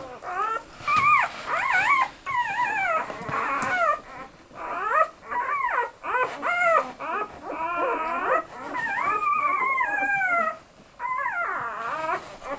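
Newborn Australian Shepherd puppies crying: a near-continuous run of high-pitched cries that rise and fall in pitch, with a brief pause near the end.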